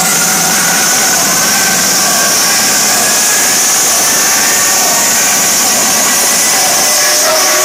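Electronic dance music build-up played very loud over a festival sound system: a steady rush of white noise with thin synth tones slowly rising in pitch and the bass cut out, the riser that leads into a drop.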